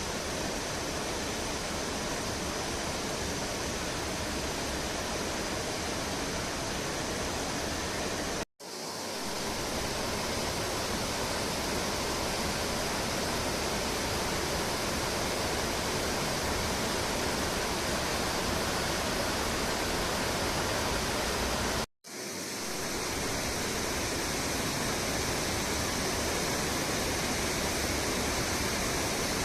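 Clear mountain river water rushing steadily. The sound cuts out twice for an instant, about 8 and 22 seconds in, and fades straight back.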